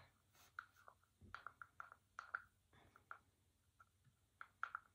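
Faint, irregular small taps and scrapes as wet, reconstituted pastel is poured and scraped out of its mixing container into candy molds.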